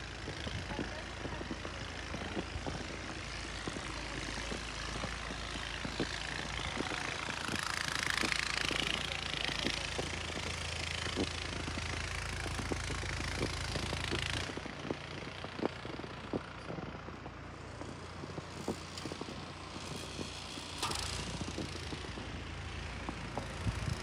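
Strong gusting wind on the microphone during a snowstorm, swelling to a peak in the middle and dropping off suddenly, over the crunch of footsteps on a snowy sidewalk.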